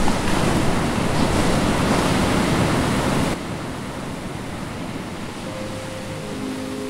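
Ocean surf: an even rushing wash of breaking waves that drops sharply in level about halfway through. Soft music notes come in near the end.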